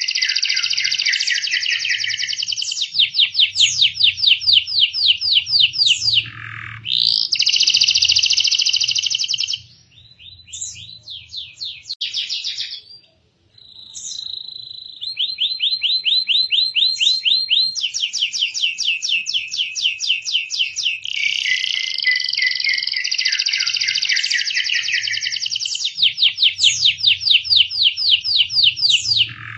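Domestic canary singing a long, high-pitched song of rapid trills and rolls, each made of many quick repeated notes. About ten seconds in the song breaks into shorter, quieter phrases before the fast trilling resumes.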